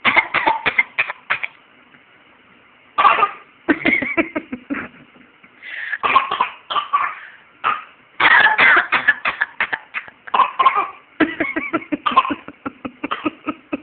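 A toddler making pretend coughs: short runs of several quick coughs, repeated again and again with brief pauses between the runs.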